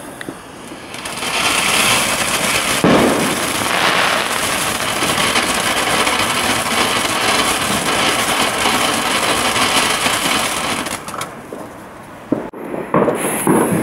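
Firework fountain spraying sparks: a steady hiss with crackle that builds about a second in, holds for several seconds and dies away near the end.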